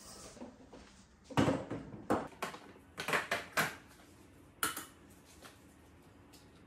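Kitchen clatter of a saucepan being handled and set down: a run of sharp knocks and clinks, the loudest about a second and a half in, a quick cluster around three seconds in, and a last clink just before five seconds.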